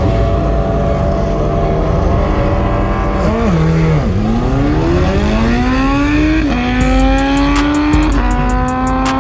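Inline-four sport bike engine held at steady revs on the start line, then launching: the revs climb hard through the gears, with the pitch dropping at each quick upshift, twice in the latter half and once more at the end.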